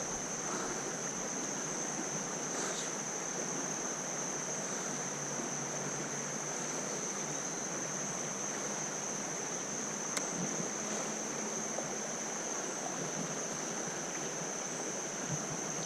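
Steady rush of creek water running over rocks, with a continuous high, thin insect drone over it.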